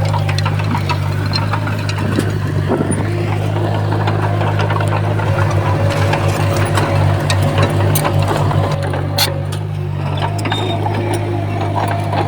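Diesel engine of a Komatsu D20P crawler bulldozer running steadily under work, throbbing for a few seconds in the middle, with scattered clanks and clicks.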